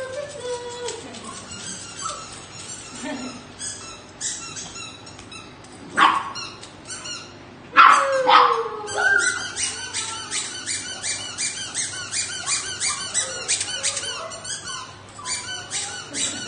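Corgi puppies yapping and barking, with two loud, sharp yelps about six and eight seconds in. A quick run of short ticks, several a second, fills the second half.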